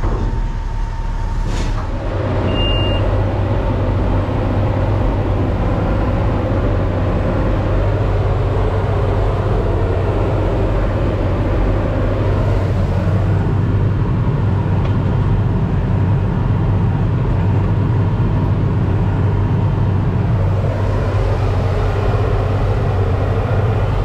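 Tractor engine running steadily, heard from inside the cab while working with a big square baler in the field. A single short electronic beep sounds about three seconds in.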